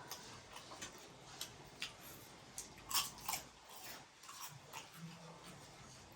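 Close-up eating sounds of someone chewing a mouthful of noodles: irregular wet clicks and smacks, the loudest about three seconds in.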